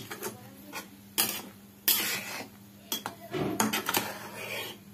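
Spatula stirring drumstick-leaf curry in a metal pan: irregular scrapes and knocks against the pan, a longer scrape about two seconds in and a busier run of scraping between about three and four seconds in.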